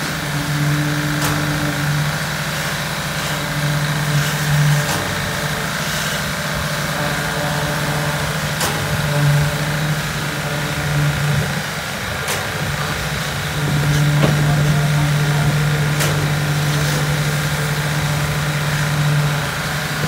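Concrete poker vibrator running in fresh slab concrete: a steady machine hum that comes and goes several times as the vibrator works, with the longest stretch in the last third, over constant engine noise and a few light knocks.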